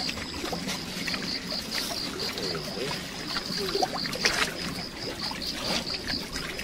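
Small lake waves lapping and splashing against shoreline rocks, with a steady, pulsing high-pitched buzz.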